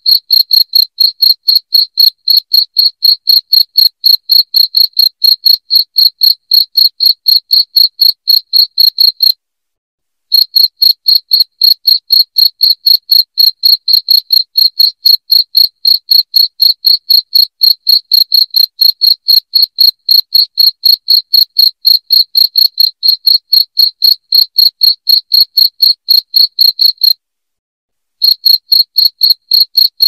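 Cricket chirping loudly in an even, unbroken run of short chirps at about five a second. The chirping breaks off for about a second twice, once about nine seconds in and once near the end.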